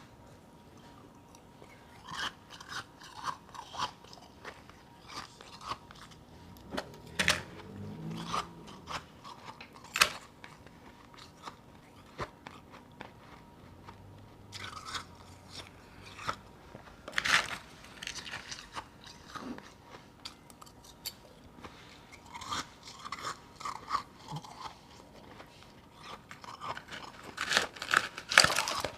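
A person biting and chewing chunks of powdery frozen ice close to the microphone: irregular runs of crisp crunches, with a few sharper, louder bites scattered through and a dense cluster near the end.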